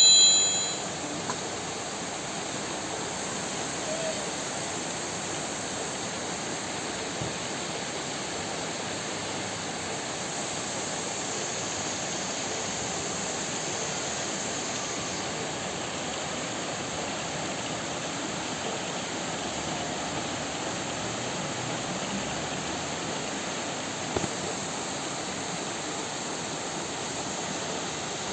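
Heavy downpour: a steady, even rush of pouring rain, with a brief louder sound at the very start.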